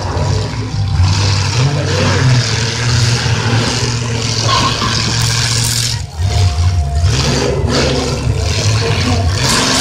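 Several V8 demolition-derby cars' engines running and revving hard, a deep, uneven engine rumble that rises and falls as the drivers push their wrecked cars around.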